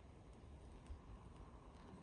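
Near silence: faint outdoor ambience with a low rumble and one soft knock about a second in.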